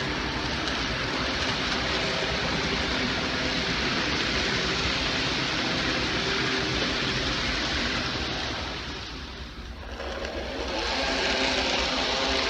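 N-scale model trains running: a steady whir of small electric motors and the rattle of wheels on track, dipping briefly about nine seconds in before picking up again.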